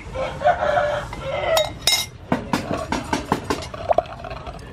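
Metal spoon scraping around a ceramic bowl as tamarind sauce is spooned out, then a quick run of sharp clinks, about five a second, as the spoon knocks against the bowl.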